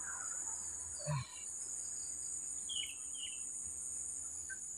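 Steady high-pitched drone of an insect chorus, with a few short bird chirps about three seconds in. A man's voice makes a brief low hum about a second in.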